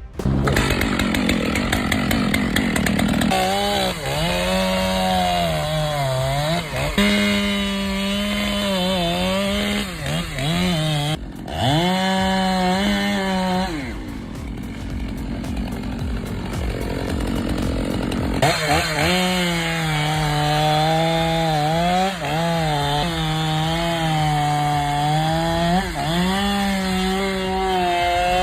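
Chainsaw cutting through a tree, its engine note wavering as it bogs under load and picks up again. The steady note drops out for a few seconds around the middle, leaving a rougher, noisier sound before the saw comes back.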